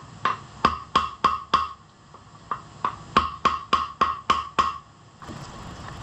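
Hammer blows on a wooden drift, driving a seized piston back down the bore of a John Deere 1010 diesel engine's cylinder block: sharp ringing knocks about three a second, in two runs with a short pause about two seconds in.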